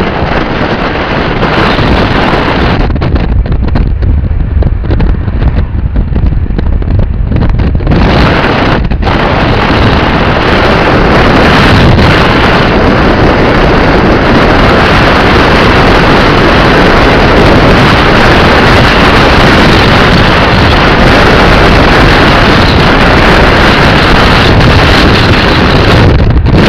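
Wind buffeting the camera microphone: a loud, steady rush with a low rumble. It grows fuller and brighter from about eight seconds in.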